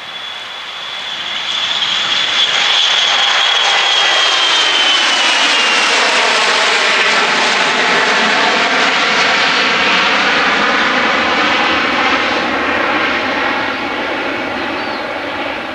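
Bombardier Global 6500 business jet's twin Rolls-Royce Pearl 15 turbofans at takeoff power as it lifts off and climbs past. A high whine drops in pitch as the jet goes by, the engine noise swelling a second or two in, staying loud, and fading near the end.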